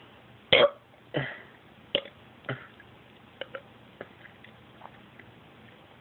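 A short, loud burp about half a second in, followed by a few weaker throaty bursts and scattered faint clicks.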